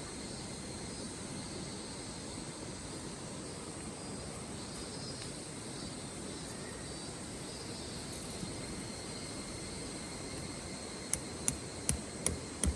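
Steady outdoor background noise with a low rumble and faint high steady tones, then several sharp clicks or snaps near the end.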